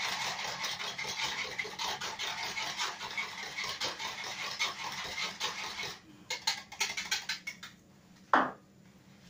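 Eggs and milk being hand-beaten in a plastic measuring jug for an egg custard: fast, repeated scraping strokes of the utensil against the jug, several a second, that stop about six seconds in. A few light taps follow, then one louder knock near the end.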